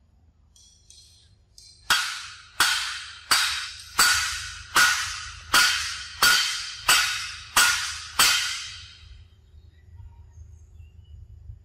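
Ten sharp strikes at an even pace, about one every 0.7 seconds, starting about two seconds in, each ringing on and fading over about a second.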